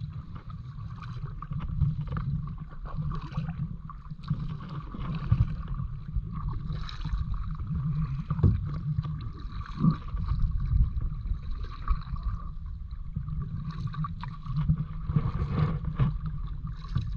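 Kayak paddling: paddle strokes in the water and water lapping at the hull, under a steady low rumble of wind on the microphone, with occasional sharp thumps.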